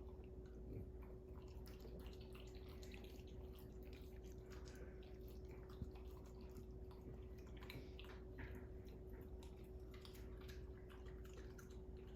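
Near silence: faint room tone with a steady low hum and scattered soft clicks, one slightly sharper tick about six seconds in.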